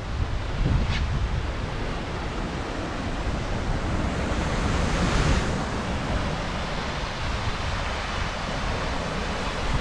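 A waterfall dropping about 65 feet makes a steady rushing sound, with wind buffeting the microphone in a low rumble.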